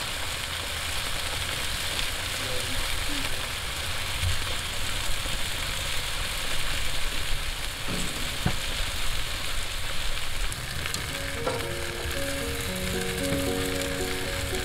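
Sausages, peppers and onions sizzling on foil over a hot grill, a steady hiss. Soft background music with a melody comes in about three quarters of the way through.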